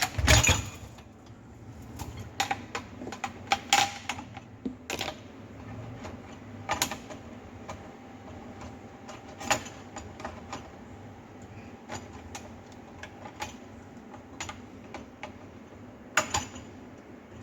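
Irregular plastic clicks and knocks as dishwasher parts are handled and fitted back into place, loudest right at the start and again near the end.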